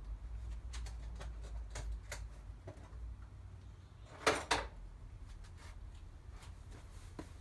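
Scattered clicks and clinks of metal hand tools being handled, with a louder double clatter about four seconds in, over a steady low rumble.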